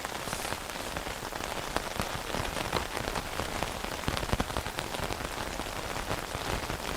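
Rain falling on a tent: a steady hiss with many separate drops tapping on the fabric, heard from inside.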